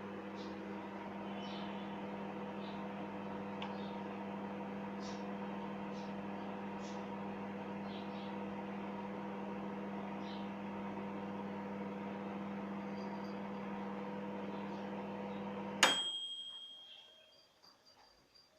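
Microwave oven running with a steady hum. About sixteen seconds in it switches off with a sharp click and a short high ringing tone.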